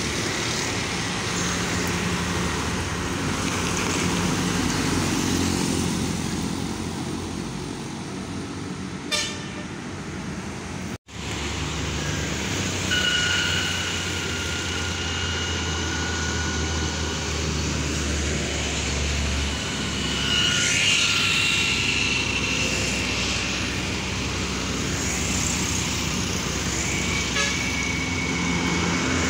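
Diesel trucks and traffic passing on an uphill road, with steady engine and tyre noise. A vehicle horn gives a long, steady blast a couple of seconds after a brief dropout in the sound, sounds again about twenty seconds in, and gives a shorter toot near the end.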